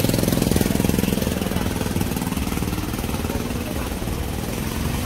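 An engine running steadily with a rapid, even pulse, over a steady hiss; it is a little louder in the first second or so, then holds level.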